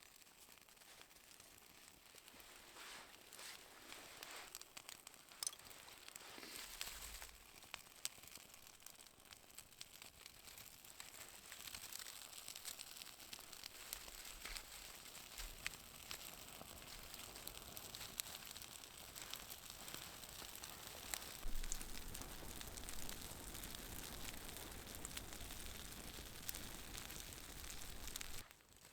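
Small wood campfire crackling and hissing with many small pops, slowly getting louder as it catches, then cutting off suddenly near the end.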